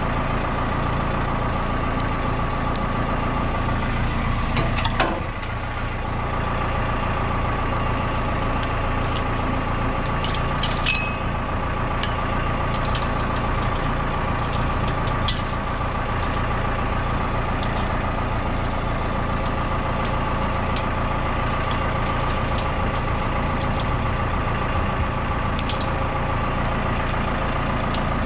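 Diesel backhoe engine running steadily, with a constant whine held throughout. A few sharp clanks and knocks break in, about five seconds in, around ten to eleven seconds, at fifteen seconds and near the end.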